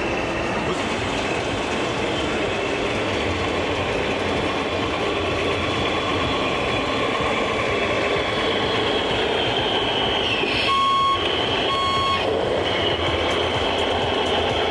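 Steady din of an exhibition hall around radio-controlled model trucks. Near eleven seconds in, two short electronic beeps sound about a second apart.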